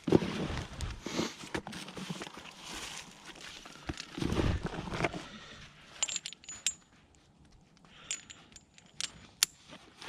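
Rustling and scuffing knocks, then from about six seconds in, sharp clicks and short high metallic clinks and jingles, like loose metal hardware knocking together.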